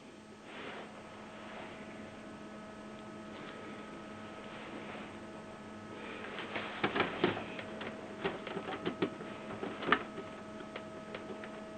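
Steady electrical hum with, from about six seconds in, irregular small plastic clicks and rustling of hands fitting tube holders and ink tubing onto a Canon inkjet printer.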